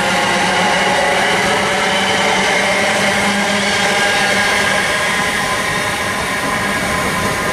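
Electric multiple-unit passenger train running past close by: a steady rumble of wheels on the rails with a motor whine. The whine eases a little about four seconds in as the last coaches pass and the train draws away.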